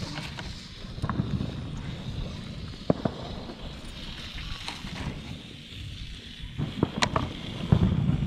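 Wind buffeting the microphone in a steady low rumble, over a faint steady hiss. A few sharp pops cut through, the clearest about three seconds and seven seconds in.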